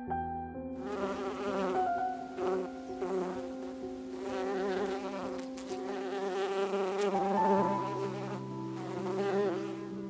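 Honey bees buzzing, a wavering drone that comes in about a second in and fades near the end, over quiet held piano notes.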